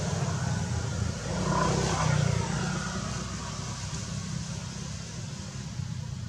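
A motor vehicle going by: a low rumble that swells about two seconds in, then fades.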